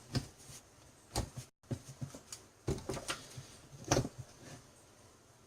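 Handling noises from work on a cordless drill's plastic housing and parts: a series of separate sharp clicks and knocks, the loudest about four seconds in.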